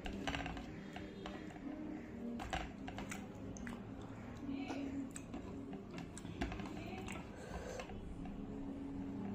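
Close-miked eating sounds: wet mouth clicks and chewing of rice eaten by hand, with fingers scraping the last grains from the plate, as irregular small clicks.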